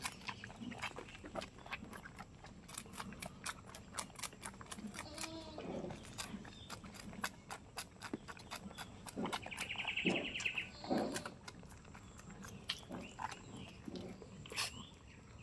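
Goats bleating in short calls among scattered sharp clicks, with a brief high trill about ten seconds in.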